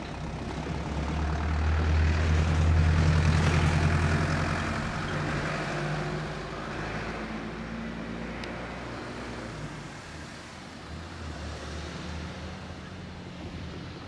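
A loud low rumble swells and fades over the first few seconds, then a quieter steady hum as a JR 205 series electric commuter train rolls slowly into the station.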